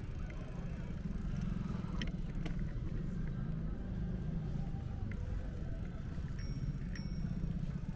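Street traffic ambience: a steady low rumble of passing road vehicles, with a few faint clicks and knocks.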